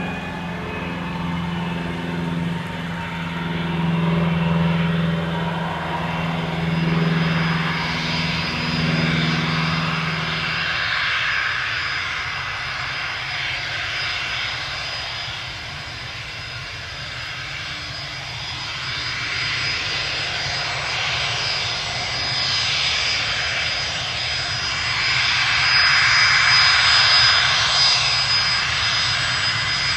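Fokker 100's Rolls-Royce Tay turbofan engines running with a steady high-pitched whine over a rushing roar, getting louder toward the end. A low droning hum underneath stops about a third of the way through.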